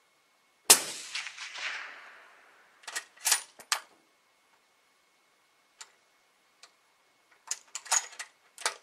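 A single shot from a suppressed .308 Winchester Marlin X7VH bolt-action rifle with a Stalon Whisper suppressor: a sharp crack a little under a second in with a long echoing tail. Then a quick run of metallic clicks as the bolt is worked, and more clicks of handling near the end.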